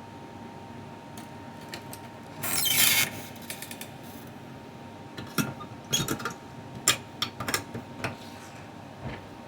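Handling of small parts and tools on a workbench: a brief rustling rush a couple of seconds in, then a scatter of small clicks and taps, over a steady background hum.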